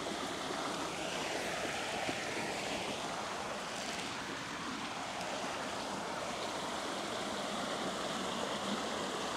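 Steady rush of water pouring through a canal lock's overflow.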